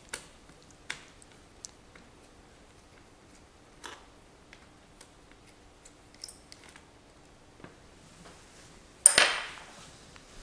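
Scattered small clicks and taps of a small Phillips screwdriver working screws out of a laptop's plastic bottom case. About nine seconds in comes one loud metallic clatter that rings briefly.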